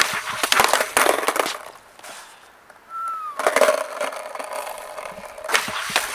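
Skateboard clattering and rolling on asphalt in a bail: a quick run of hard wooden knocks from the board slapping down, then further sharp board impacts near the end.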